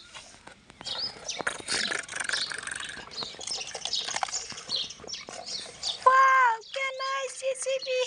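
Dry dirt scraped up and poured from a plastic toy excavator bucket into a plastic toy truck bed: a patter of grit with light plastic clicks, and birds chirping. About six seconds in, a high voice starts making long held calls that bend down in pitch, louder than the digging.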